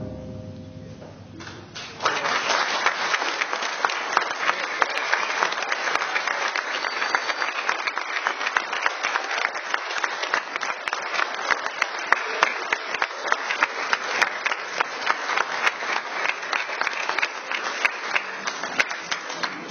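Audience clapping in a large hall. It starts about two seconds in after a brief lull and runs steadily until it fades near the end.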